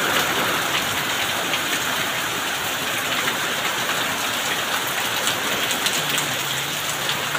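Steady rain falling on roofs and paved ground, an even hiss.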